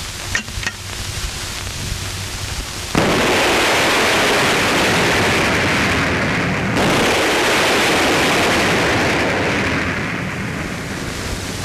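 75mm T-21 recoilless rifle firing: a sudden loud blast about three seconds in, running on as a long stretch of loud noise that eases off near the end as the shell bursts downrange. Before it, a couple of light clicks over the hiss of old film sound.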